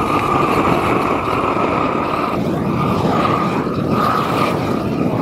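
Backpack propane flame weeder's torch burning steadily and loudly, a continuous rushing roar from the burner.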